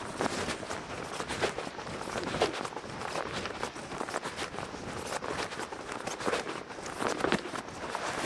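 Footsteps of a person walking on a tarmac pavement at a steady pace, with a soft noise in between.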